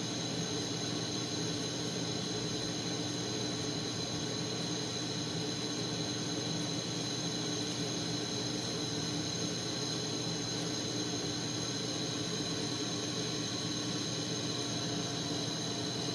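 Propane-oxygen glassworking torch burning with a steady hiss, unbroken throughout, with faint steady tones underneath.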